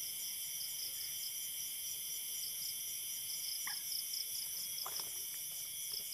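Night insects, crickets, chirping in a steady high pulsing chorus of about four pulses a second, with a couple of faint short clicks in the middle.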